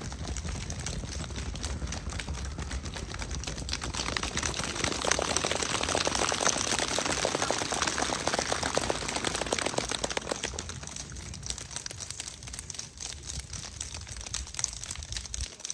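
A dense crackling patter of many small clicks, swelling to a peak about halfway through and then fading away.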